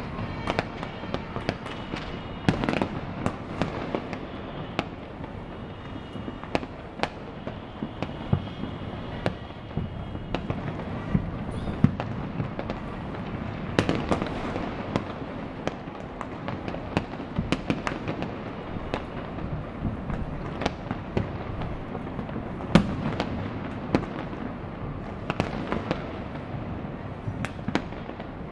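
Many fireworks and firecrackers going off at once: an unbroken run of irregular bangs and pops, several a second, over a steady rumble, with a louder single report now and then.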